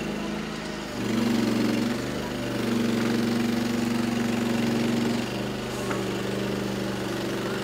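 Engine of a vehicle manoeuvring a fairground transport trailer, running steadily under load. The revs pick up about a second in and ease back a little after about five seconds.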